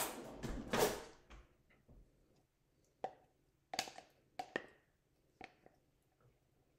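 Utensil scraping and knocking inside a peanut butter jar while scooping out peanut butter: a cluster of handling noise in the first second, then a handful of short, sharp clicks and knocks a little apart.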